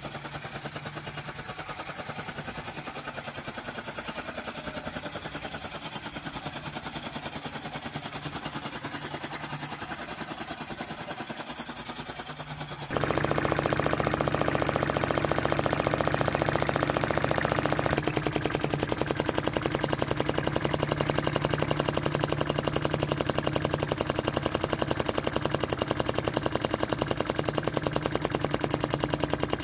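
Small flame licker (vacuum) engine, converted from an old RC glow engine, running fast on a torch lighter's flame with a rapid, even mechanical clatter. It gets much louder about halfway through.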